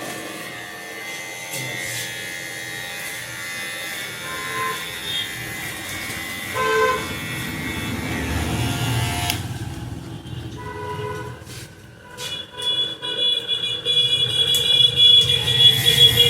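Street traffic with short vehicle-horn toots, growing louder in the last few seconds as a held horn-like tone comes in.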